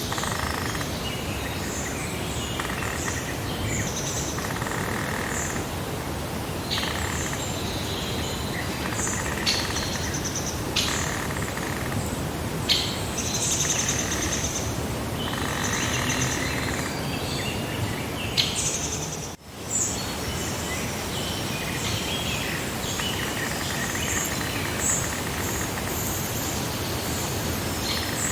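Songbirds chirping and trilling in many short, overlapping calls over a steady background hiss of outdoor noise. The sound drops out briefly about two-thirds of the way through.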